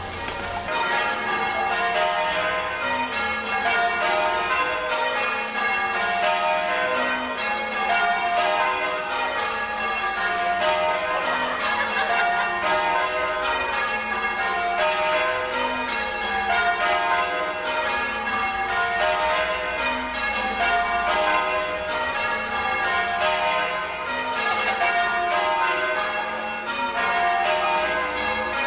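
Church tower bells being change-rung: the bells strike one after another in steady, repeating rounds that run down the scale, without a break.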